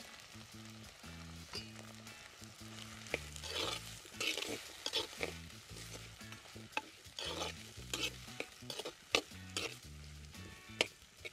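Steel ladle stirring and scraping shallots and curry leaves frying in an earthenware clay pot: a series of scraping strokes with sizzling, starting about three seconds in.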